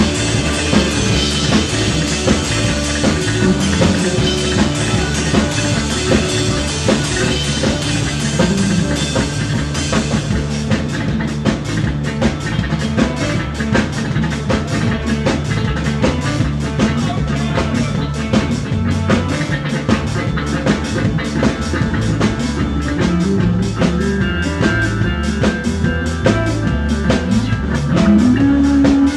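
Live rock band playing loudly: electric guitars over a drum kit, without a break.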